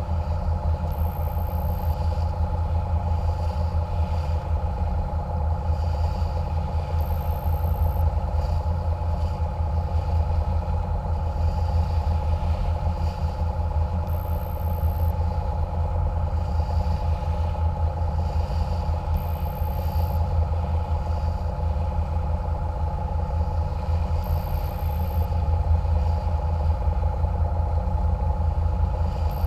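Catamaran water bus's engines running steadily at cruising speed: a constant low rumble with a steady hum of several tones over it.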